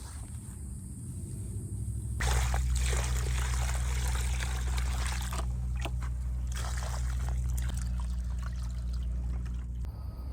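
Water pouring or trickling steadily, with a low hum underneath. It starts about two seconds in and stops shortly before the end.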